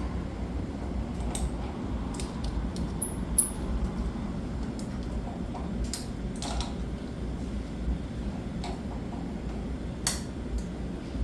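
Scattered metallic clicks and clinks as locking pliers (vise grips) and hand tools are worked on pressure washer pump parts, over a steady low rumble.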